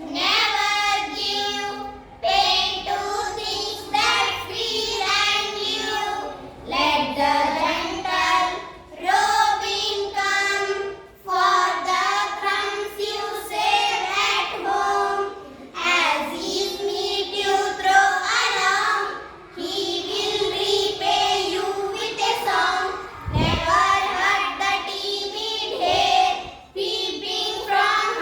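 A child singing a poem as a rhyme, in short phrases of about two seconds with brief breaths between them. A short low thump about two-thirds of the way through.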